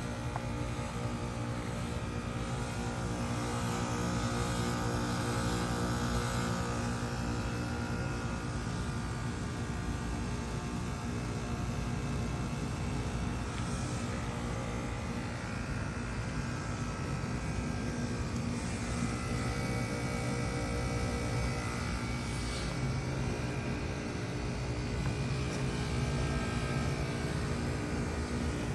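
Two Carrier Comfort Series heat pump outdoor units running through a defrost cycle, a steady mechanical drone with several steady hum tones from the compressors.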